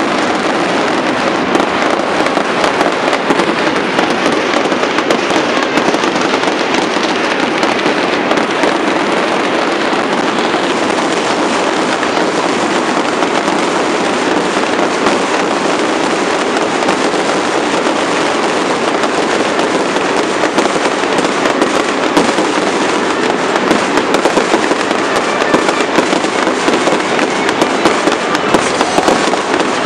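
Ground fountain fireworks spraying sparks with a dense, unbroken crackling hiss. In the last third, sharper pops stand out as aerial shells begin bursting.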